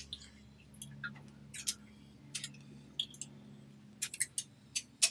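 Light, irregular metallic clicks and ticks from a silverware spring-hinge bracelet, its flatware handles and coiled steel spring knocking together as it is bent by hand. The clicks come more often near the end.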